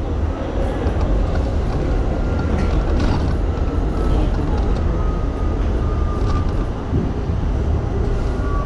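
New York City subway train running at speed, heard from inside the car: a steady low rumble of wheels on rail, with a few brief high squeals.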